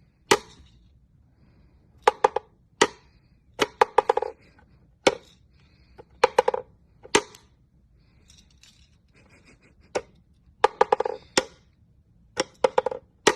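Irregular sharp knocks and clatters of hard objects, some single and some in quick runs of several, a few with a brief ringing after them.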